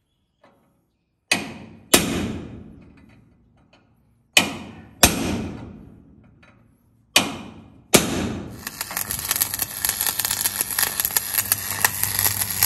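Three pairs of heavy hits, each ringing away over a second or two, with dead silence between them. From about eight and a half seconds a steady crackling noise with a low hum takes over.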